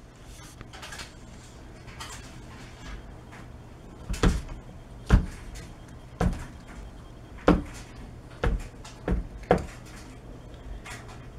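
A door knocking and thudding as a kitten bats at a stuffed Santa decoration hanging on it, knocking it against the door: about eight sharp, irregular knocks from about four seconds in, after a few seconds of light scratching and rustling.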